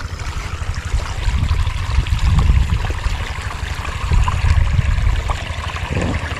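Irrigation water running strongly along a shallow earthen ditch, a steady rushing and trickling, over a low uneven rumble.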